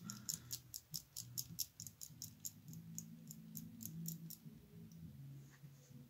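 Number wheels of a Yale four-wheel combination padlock being spun by hand to scramble the code, clicking over their detents about five times a second. The clicking stops about four seconds in, leaving a faint low hum.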